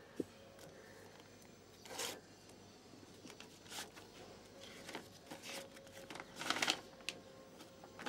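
Paper rustling as an envelope is opened and a folded letter is drawn out and unfolded, in several short bursts, the loudest about six and a half seconds in.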